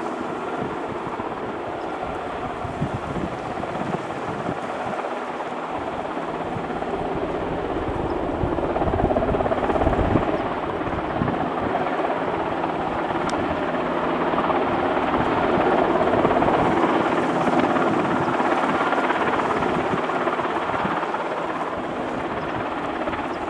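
Sikorsky S-92 helicopter hovering low: a steady rush of rotor and turbine noise with a faint engine whine. It swells louder through the middle and eases off near the end.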